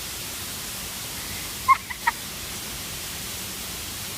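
Steady rushing of a waterfall, an even wash of noise, with three short pitched calls close together about two seconds in.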